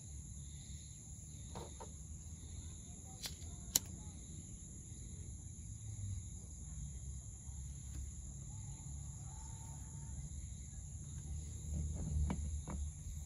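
Steady insect chorus holding two constant high pitches, over a low rumble. A sharp click sounds a little under four seconds in, and a few light taps come near the end as the small metal lantern door is handled.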